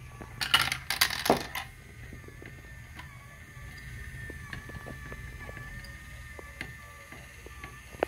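A toy marble run's motorised plastic chain lift runs with a steady whine and light, regular ticking as the links carry the balls up. A few sharp clacks sound in the first second and a half.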